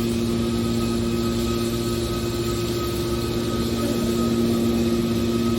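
Hydraulic aluminum baler running, a steady machine hum with a constant pitch.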